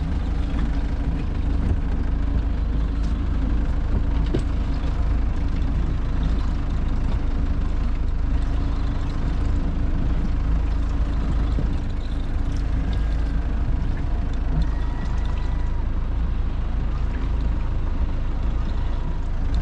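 Steady low rumble of a fishing boat's engine running at sea, with a faint steady hum over a constant wash of wind and water noise.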